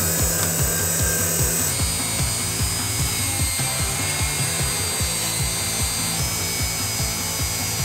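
A bench grinder's wire wheel scrubbing rust off a steel engine-mount bracket, then, about two seconds in, a small rotary tool with a wire brush whining at high speed as it cleans the bracket. Background music with a steady beat plays under it.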